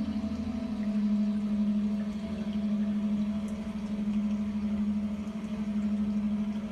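Slow ambient music of long held tones, the sound of plants' signals turned into music. A higher note fades within the first second, and a single low note then holds steadily, swelling and fading in a slow pulse.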